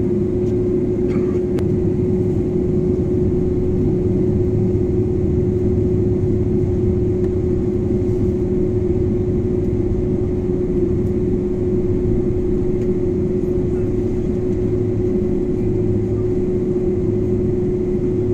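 Airliner's jet engines heard from inside the cabin during taxiing: a steady deep rumble under one constant whining tone, with no change in power.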